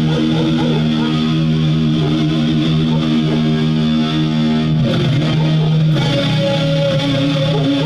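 Electric guitar playing held chords, with a chord change about five seconds in.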